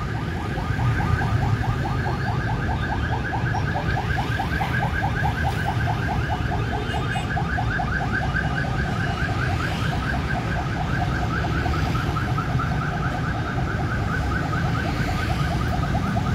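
A warbling electronic alarm tone repeats several times a second without a break, over a steady low rumble of road noise.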